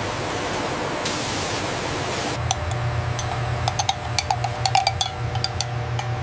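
Industrial machinery noise. A steady hiss first, then from about two and a half seconds a low hum with many sharp clicks and clanks.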